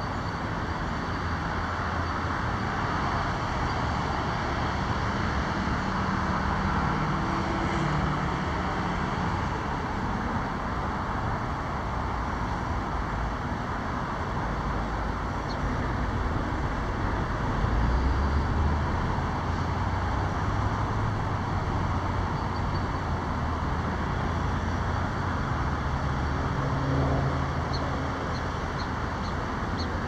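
Steady road-traffic noise: the rush of passing cars, with low engine hum coming and going and swelling about eighteen seconds in.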